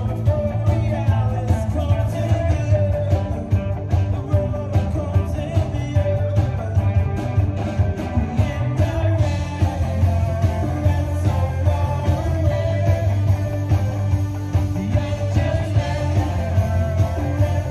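Live rock band playing through a PA: drums, electric guitars and keyboards, with a lead vocal.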